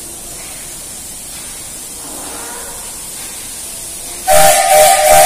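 Steam locomotive whistle sounding suddenly about four seconds in: a loud, steady blast of two close tones with a rush of escaping steam. Before it there is only a steady hiss.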